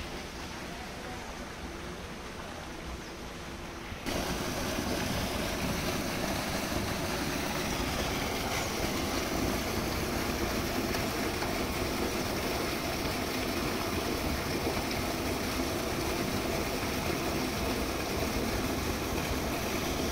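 Water pouring from a spout and splashing steadily into a stone tank. It comes in suddenly about four seconds in, after a quieter stretch of open-air wind noise.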